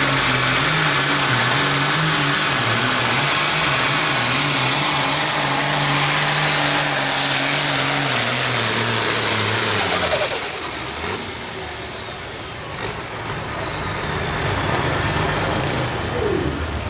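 John Deere diesel pulling tractor running flat out under load as it pulls the weight sled, its engine note holding steady. About ten seconds in the throttle comes off: the engine drops away and a high whine falls in pitch as it winds down.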